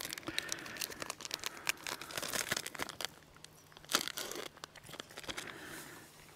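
Crinkling and tearing of a dessert-mix packet as it is handled and opened, with one sharp crackle about four seconds in, then a softer hiss as the mix is poured into a metal mixing bowl.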